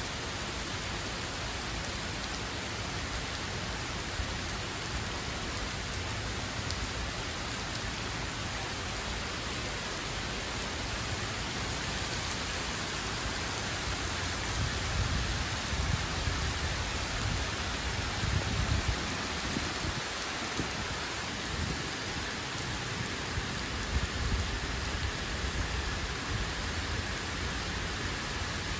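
Heavy rain pouring steadily onto grass, leaves and wet pavement, a dense even hiss. Low rumbles swell and fade several times in the second half.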